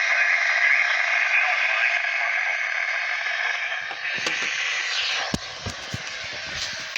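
Radio static: a steady hiss from a radio receiver picking up a weak signal, with scattered crackles and clicks from about four seconds in.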